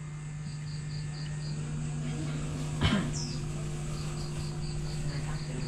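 Crickets chirping in short, evenly paced high pulses, with a high falling call repeating every few seconds, over a steady low hum. A brief knock or rustle about halfway through is the loudest sound.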